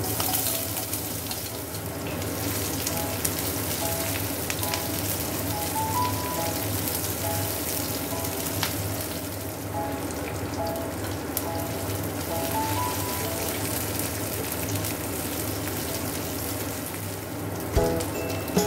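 Sliced onion sizzling and crackling in hot oil in a nonstick wok, stirred with a spatula, with a knock near the end. Soft background music with a simple melody plays underneath.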